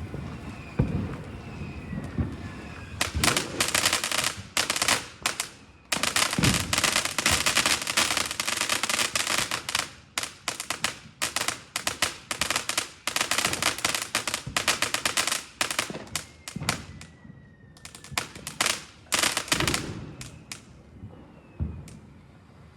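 Chinese multi-shot consumer fireworks cake firing: a few low launch thumps, then long volleys of rapid, dense crackling with short gaps between them, dying away near the end.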